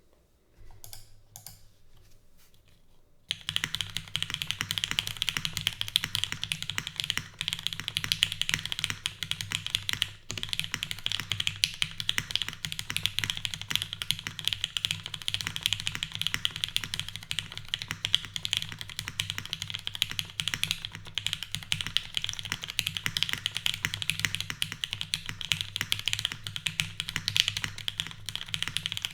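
Typing on a TGR Jane V2 CE mechanical keyboard with lubed, retooled Cherry MX Black linear switches in a top-mounted aluminium plate, with JTK keycaps. A few soft clicks come first, then fast continuous typing starts about three seconds in.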